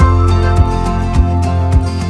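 Royalty-free background music with a steady beat, about one beat every 0.6 seconds, under held notes.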